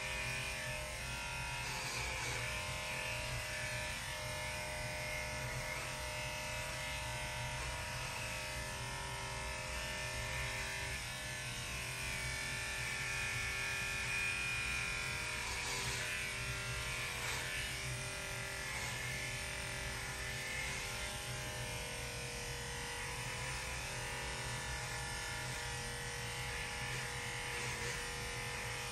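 Electric dog grooming clipper running with a steady buzz as it is worked through a Shih Tzu's coat.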